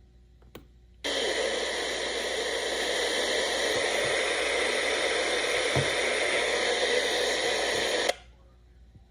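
Radio static: a loud, even hiss that cuts in about a second in, holds steady, and cuts off abruptly about eight seconds in.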